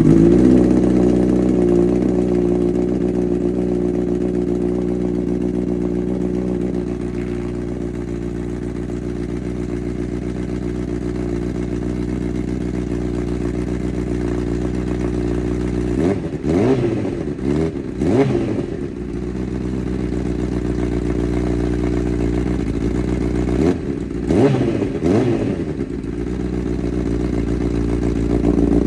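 Honda CB1000R inline-four running through a Black Widow aftermarket exhaust, idling just after a start, the idle easing down over the first several seconds. About halfway through and again near the end, several quick throttle blips rev it up and let it drop back to idle.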